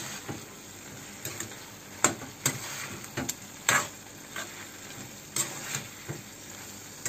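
A spatula scraping and knocking irregularly against a nonstick pan as boiled cauliflower florets are stirred into tomato gravy, over a steady low sizzle from the pan.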